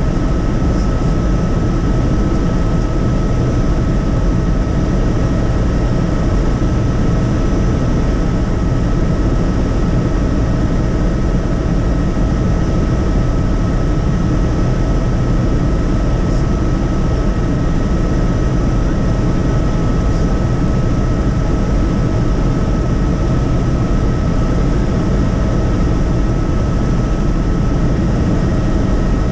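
Helicopter running steadily, heard from inside the cabin: a constant low engine and rotor drone with a thin, steady high whine over it.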